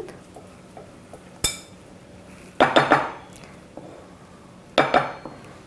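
Wooden spoon knocking against a glass bowl while stirring thin, half-cooked puran of mashed chana dal and jaggery. One sharp knock comes about one and a half seconds in, then short bursts of ringing clinks near three and near five seconds.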